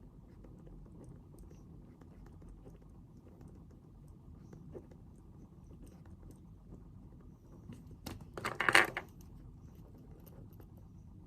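A quiet desk with a steady low room hum and faint small clicks of writing and handling. About eight seconds in comes one loud rustle of paper, lasting about a second.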